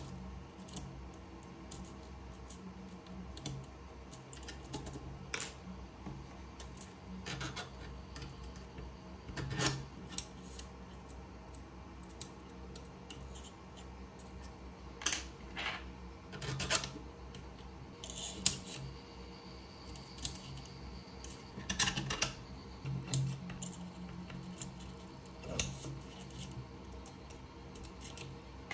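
Irregular light clicks and taps from hand assembly of a 3D printer: an Allen key, small screws and hex nuts handled against printed plastic parts and the aluminium frame, over a faint low hum.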